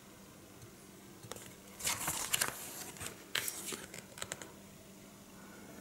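Pages of a hardcover book being turned: paper rustling and sliding in two main bursts about two and three seconds in, followed by a few light taps.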